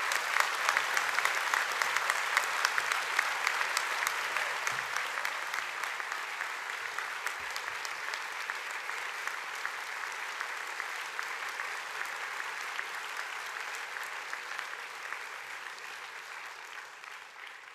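A large audience of students applauding, loudest at first and slowly dying away near the end.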